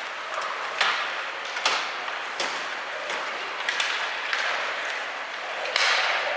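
Ice hockey play: sharp clacks of sticks and puck, with short hissing scrapes of skate blades on the ice, about half a dozen times.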